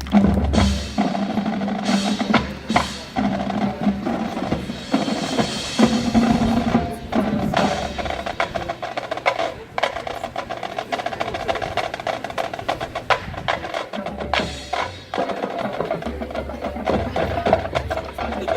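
Marching band playing, with held notes over a busy drum line striking rapidly throughout.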